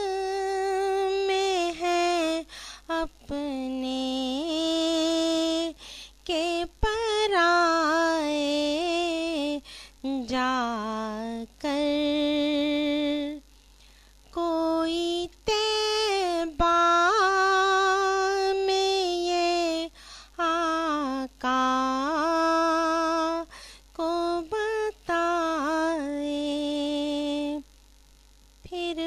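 A woman singing an Urdu naat solo, in long held and ornamented notes, her phrases broken by short pauses.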